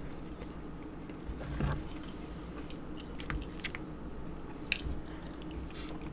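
Close-miked chewing of cashews: soft, faint crunching of nuts in the mouth, with a few sharp little clicks in the second half.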